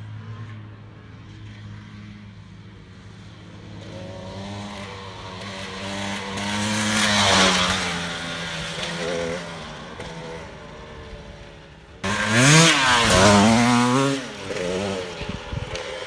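Dirt bike engine revving as it is ridden: it climbs in pitch and grows loud about seven seconds in, then eases off. About twelve seconds in it turns suddenly loud, with the revs rising and falling rapidly for a couple of seconds before dropping away.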